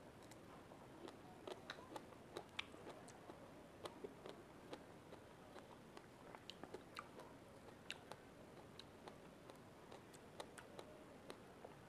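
Faint mouth sounds of a person chewing a fresh strawberry: small wet clicks and smacks at an irregular pace.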